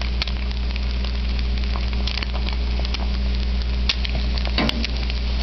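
Egg frying in olive oil in a cast-iron skillet: a steady sizzle with scattered pops and crackles.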